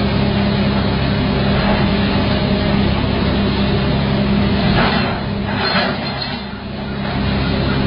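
A heavy diesel machine engine, most likely the excavator's, running at a steady drone under a rushing, noisy wash. The wash swells briefly about five seconds in and eases for a moment near the end.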